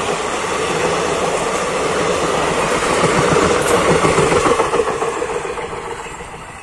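Passenger coaches of a train rolling past close by, their wheels clattering over the rails. The sound is loudest as the last coach passes, then fades away over the last couple of seconds as the train draws off.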